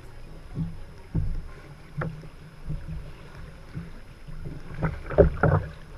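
Sea kayak paddle blades dipping and splashing in the water, several strokes, with water lapping and a low wind rumble on the deck-mounted camera; a quick run of splashes about five seconds in is the loudest.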